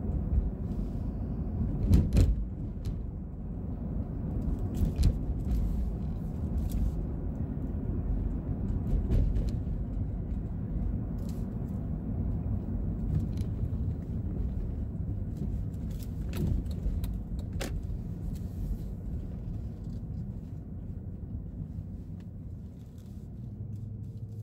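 Engine and road noise heard from inside the cabin of a Jeep Grand Cherokee with a 5.7 HEMI V8 on the move, a steady low rumble. A few sharp clicks or rattles cut through it, the loudest about two seconds in.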